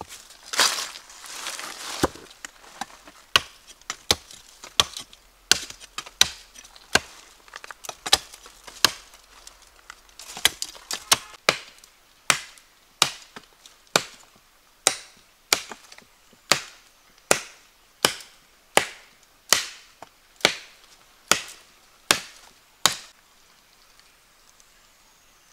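Wood being chopped with a hand tool: sharp single strikes, quick and uneven at first, then a steady blow a little under once a second from about halfway, stopping shortly before the end.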